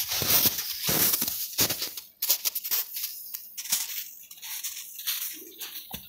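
Footsteps crunching in snow, about two steps a second, louder in the first two seconds and fainter after.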